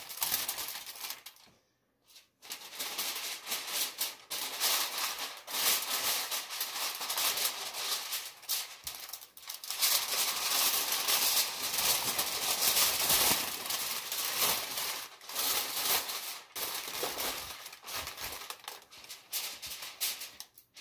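Aluminium foil crinkling and crackling as hands fold and crimp a double layer of it tightly around ribs, with a brief pause about two seconds in.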